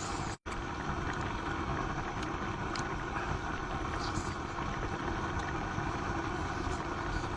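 High-output LPG burner under a hotpot, giving a steady roar with a few faint light ticks; the sound cuts out completely for an instant about half a second in.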